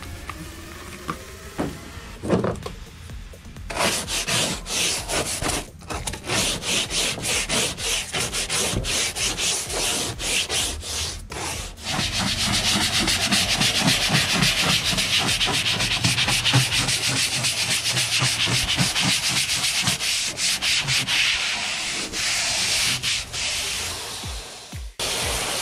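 Trigger spray bottle of Super Clean degreaser pumped over and over, a long run of quick squirts onto a plastic truck bed liner. The squirts come faster and louder from about halfway through and stop shortly before the end.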